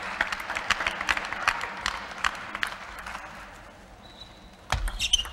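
Spectators applauding in an arena, a dense patter of claps that thins and dies away over about three seconds. Near the end comes a sudden louder thump.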